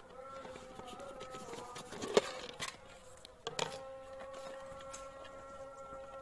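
Plastic lid clacking off a plastic tub and being set down: one sharp clack about two seconds in, then a few lighter knocks. A steady drone of held tones runs underneath.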